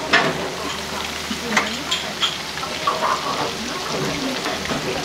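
Battered tempura deep-frying in a pan of hot oil: a steady sizzle and crackle, with a few sharp clicks on top.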